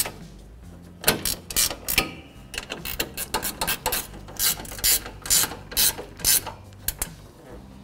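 Hand ratchet clicking in quick runs of strokes as bolts are driven down, starting about a second in.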